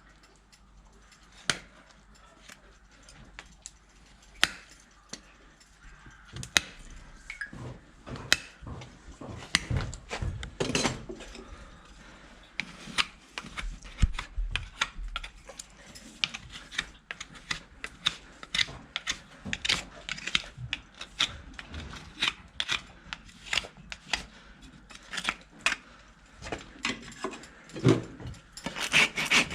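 Hoof-trimming tools scraping and clicking against a horse's hoof: a run of sharp scrapes and clicks, sparse at first and busier near the end.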